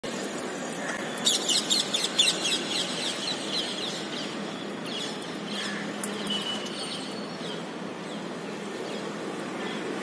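Rose-ringed parakeets calling: a rapid run of shrill, repeated screeches starting about a second in and lasting under two seconds, then a few scattered calls, over a steady background hum.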